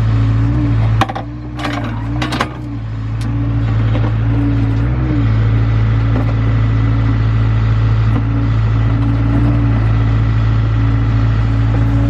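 Engine of a piece of heavy digging equipment running steadily, its pitch wavering slightly. About a second in the engine level dips and a few sharp metal clanks are heard, then it runs on steadily.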